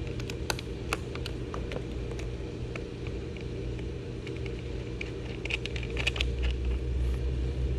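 Scattered small metal clicks and taps as cable ring terminals are handled and fitted onto a lead-acid battery's terminal post, with a cluster of them a little past halfway, over a steady low background hum.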